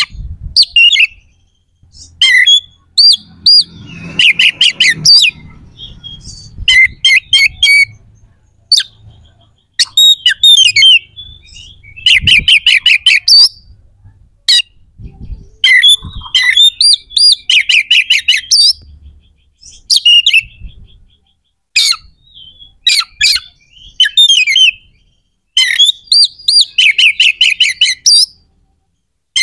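Oriental magpie-robin singing loudly in short, harsh phrases of rapidly repeated notes, with brief pauses between phrases. This is the fierce, excited song that keepers play to provoke other magpie-robins.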